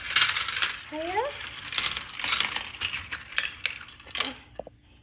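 Plastic marble-run toy clattering: a dense run of quick rattling clicks of hard pieces knocking together, thinning out about four seconds in. A short rising squeak-like sound comes about a second in.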